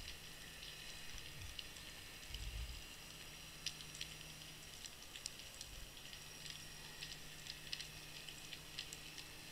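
Faint underwater ambience picked up by a seabed camera in its waterproof housing: a steady hiss with scattered, irregular sharp clicks and crackles, and a low rumble about two and a half seconds in.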